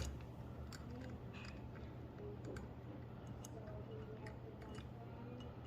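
Faint scattered clicks and light taps of small door-lock parts and hardware being handled, over a low steady hum.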